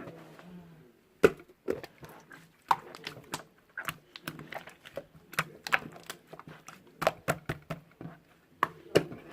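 Irregular sharp clicks and taps, a few a second, some louder than others, over a faint steady low hum.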